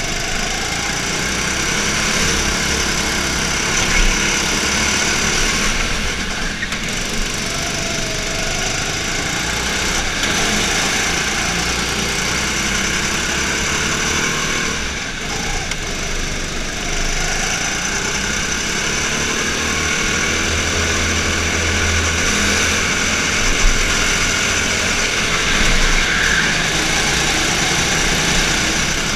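Rental go-kart engine running hard, heard close up from the kart itself, its pitch dropping and climbing again several times as the kart slows for corners and accelerates out of them.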